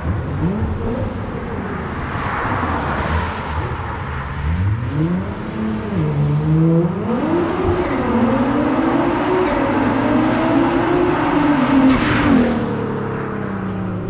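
A performance car engine accelerating hard. The pitch climbs in several rising steps, holds high, then drops away near the end, with a sharp crack just as it drops.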